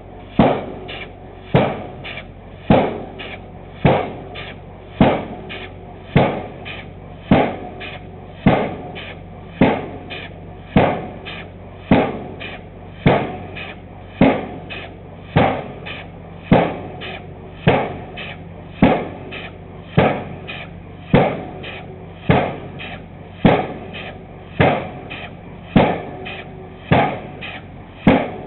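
Vulcan air-powered pile hammer striking a pile in a steady rhythm, a little under one blow a second, each blow a sharp clang with a short ring. A steady low hum of machinery runs underneath.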